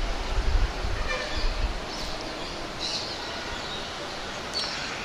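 Outdoor ambience: a steady hiss with a few faint, short bird chirps, and a low rumble during the first couple of seconds that fades out.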